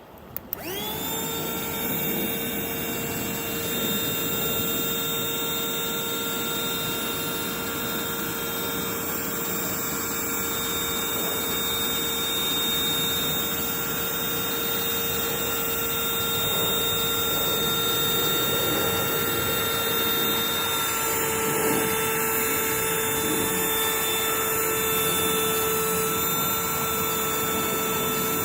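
AUTO-VOX 12V DC portable electric air pump switched on: its motor spins up within the first second, then runs steadily with a constant whine.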